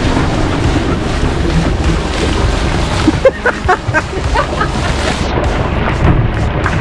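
Boat running on open water, with wind buffeting the microphone and a steady rushing noise. A few short pitched sounds stand out about three to four and a half seconds in.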